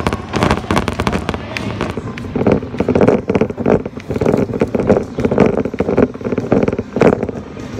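Dense crackling and rattling handling noise from a camera carried in hand while walking, with a thicker low hum from about two and a half seconds in until near the end.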